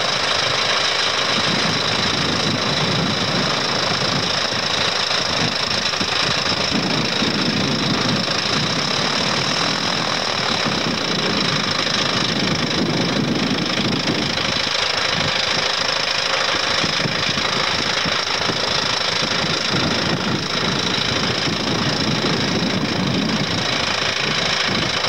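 Piper Super Cub's piston engine and propeller running steadily on the ground after crash repairs, a test run in which it runs smoothly rather than shaking.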